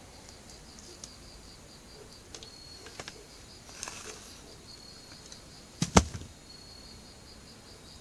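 Crickets chirping in a steady pulsing trill, with a few light clicks and a brief rustle, then one sharp, loud knock about six seconds in.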